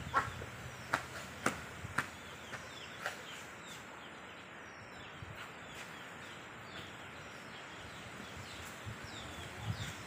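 Outdoor ambience with small birds chirping now and then in short falling notes, and five sharp clicks within the first three seconds.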